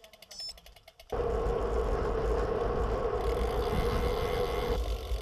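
Faint rapid ticking, then, about a second in, a sudden change to the steady rush of wind on the microphone and the hum of road-bike tyres rolling on asphalt while riding. The hum's steady mid tone drops away near the end.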